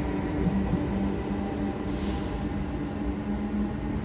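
Passenger train at a station platform, its machinery running with a steady low hum of held tones over a rumble.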